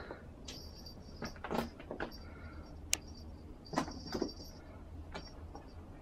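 A cat jumping down and pouncing on a string on carpet: a few soft thumps and scuffles, with a sharp click about three seconds in. Short, thin, high chirps come and go over them.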